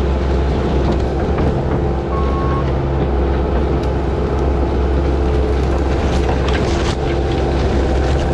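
Bobcat T770 compact track loader's diesel engine running steadily under work, with a single short beep about two seconds in and scattered clanks.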